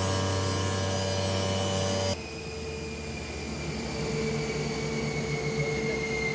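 Large automatic helical planer (ST-132) running, a steady machine hum with several tones. About two seconds in the sound changes abruptly to a quieter run with a slowly falling whine, which grows louder again a couple of seconds later.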